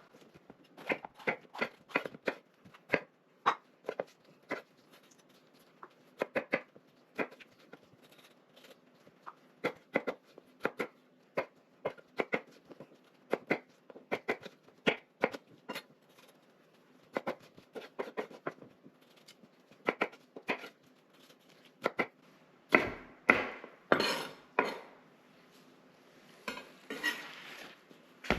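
Knife cutting bell peppers into large chunks on a cutting board: an irregular run of sharp knocks, a few a second, with a cluster of heavier strikes a few seconds before the end.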